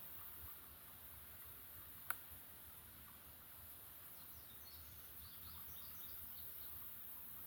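Faint outdoor background noise with one sharp click about two seconds in, and a few faint, high bird chirps in the second half.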